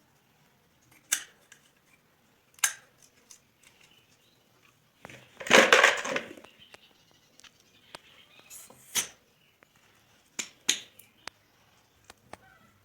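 Clicks and clinks of small metal parts and tools handled while a small engine's carburetor is taken apart, with one louder scraping noise about halfway, lasting about a second.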